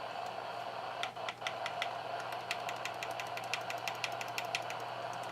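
Rapid small clicks and scratches from hand cleaning of parts inside a scanner radio, starting about a second in, over a steady low hum.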